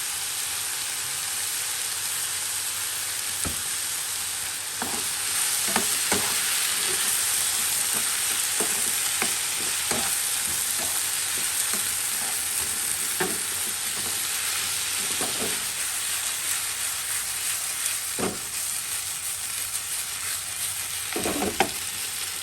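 Food sizzling as it fries in a pan, a steady hiss that gets a little louder about five seconds in. A utensil scrapes and knocks against the pan every second or two as the food is stirred.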